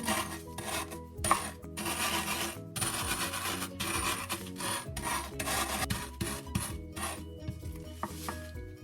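Crispy rice cereal being crushed, a run of rasping, crunching strokes about two to three a second that grow softer near the end.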